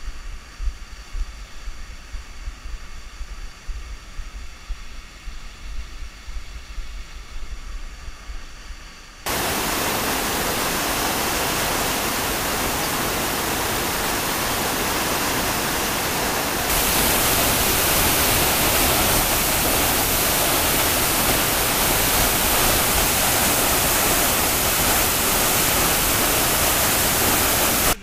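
Gusty wind buffeting the microphone, then from about nine seconds in a loud, steady rush of water from a 40 m waterfall, which grows louder again around seventeen seconds.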